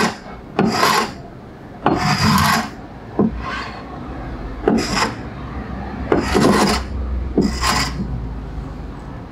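Darex No. 8 cabinet scraper drawn across a wooden workbench top in repeated rasping strokes, about seven in all, each lasting half a second to a second with short pauses between.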